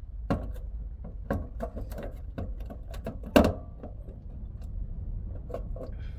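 Small metallic clicks and taps from hand-fitting the small 7 mm bolts into a fuel pump flange, with one louder knock about three and a half seconds in, over a low hum.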